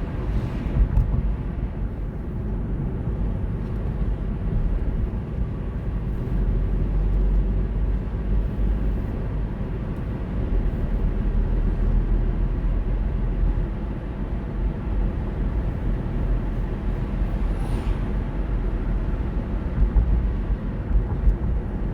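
A car driving along at steady speed: a continuous low rumble of engine and tyre noise.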